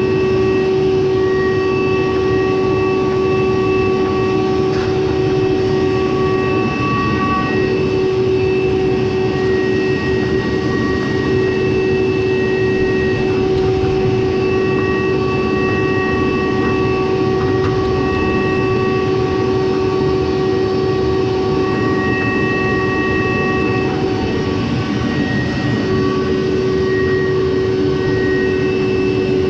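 Frigidaire FDE648GHS0 electric clothes dryer running: a steady loud mechanical rumble with a sustained droning tone, and higher whining tones that come and go every second or two.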